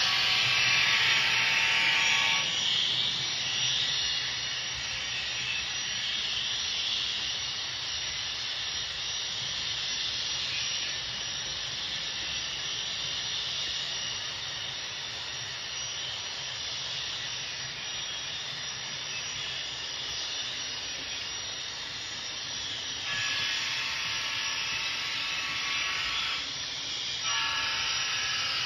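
Model Union Pacific gas-turbine locomotive's sound system playing a steady hissing rush with a high whine, along with the freight train running on the layout's track. The whine is strongest in the first couple of seconds and comes back near the end.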